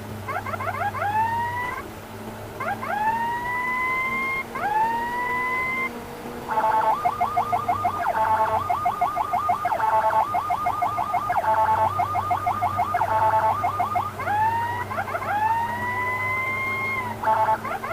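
Ambulance electronic siren switching between patterns: short rising sweeps that break off sharply, then a rapid warbling yelp from about six seconds in until about fifteen, then rising sweeps again. A steady low vehicle drone runs underneath.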